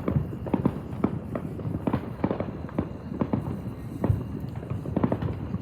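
Fireworks going off: a run of sharp pops and bangs, about two a second, unevenly spaced.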